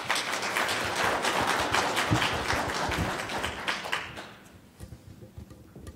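Audience applauding: dense clapping that fades away about four and a half seconds in.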